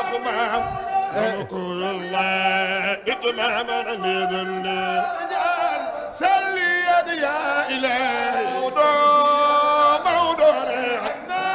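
A man chanting a devotional Arabic poem solo into a microphone, in long held notes with wavering, ornamented pitch, louder near the end.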